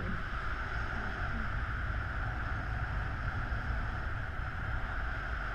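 Wind rushing over an action camera's microphone in paraglider flight: a steady low rumble of buffeting with a steady hiss above it.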